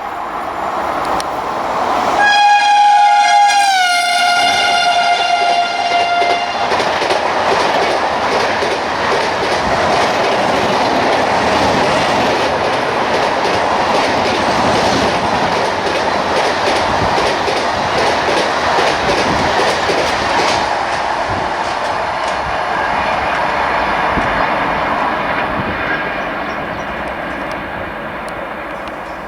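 WAP-7 electric locomotive's horn sounding one long blast about two seconds in, its pitch dropping partway through as the locomotive passes. Then comes the rushing, clattering noise of the express's coaches passing at over 100 km/h, with wheels clicking rapidly over rail joints. The noise eases off near the end.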